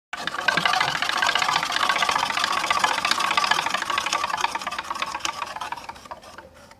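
Prize wheel spinning: its flapper clicks rapidly against the pegs, the clicks fading and spreading out as the wheel slows, before stopping near the end.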